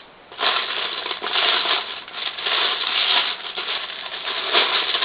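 Hands rummaging through a bucket of loose Lego bricks, many small plastic pieces clattering and rattling against each other, starting about half a second in.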